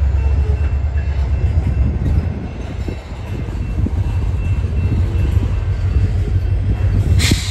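Norfolk Southern mixed freight train's covered hopper cars rolling past close by, a steady low rumble of wheels on the rails. A brief sharp hiss-like noise cuts in near the end.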